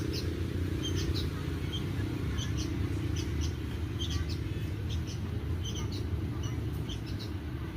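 Short, high-pitched chirps from a small animal, repeating irregularly about twice a second over a steady low hum.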